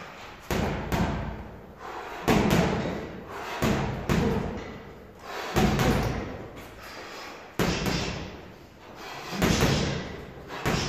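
Boxing gloves punching a heavy bag in short combinations, a cluster of hits every one to two seconds, each followed by room echo.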